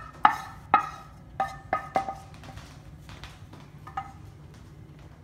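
Wooden spatula scraping and knocking fried onions out of a frying pan into a stainless-steel mixer-grinder jar: a quick series of sharp knocks, each with a short metallic ring, six strong ones in the first two seconds, then a few fainter taps.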